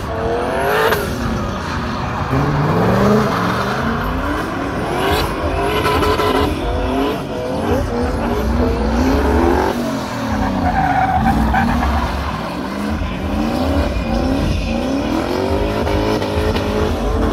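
Turbocharged BMW V8 engines (M60B40 and M62B44) in two drifting BMW E30s, the revs rising and falling again and again as the drivers work the throttle, with tyres skidding on the asphalt.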